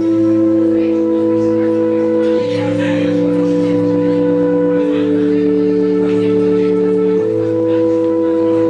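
Live band music: a slow passage of long held chords that change about every two and a half seconds.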